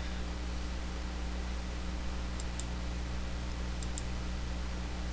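Steady low electrical hum with background hiss from the recording, with a few faint ticks about two and a half seconds and four seconds in.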